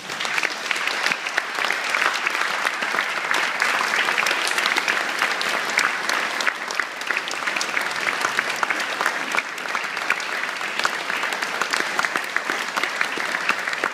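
Audience applauding, a dense, steady patter of many hands clapping that starts at once as the speech ends.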